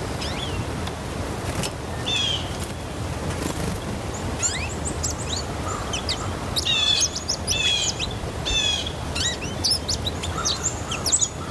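Songbirds chirping around a backyard bird feeder: many short, quick, high calls that overlap and get busier about halfway through, over a low steady background rumble.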